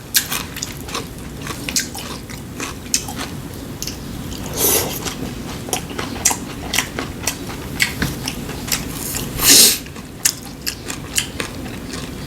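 Close-up eating sounds: chewing with many small wet mouth clicks and smacks. There are two louder brief rushes of noise about 5 and 10 seconds in.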